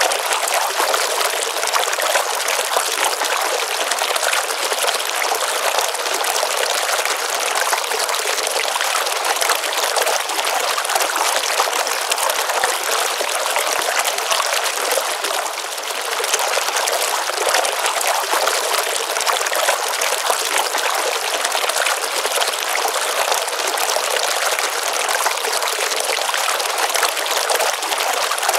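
Water running steadily in a small pond stream, an even rush and trickle that does not change.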